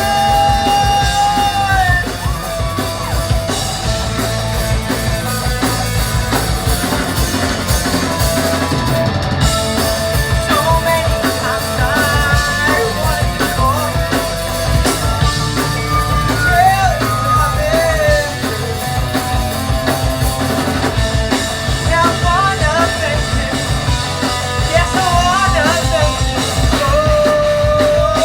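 Rock band playing live, with a singer holding long sung notes over drums and guitar.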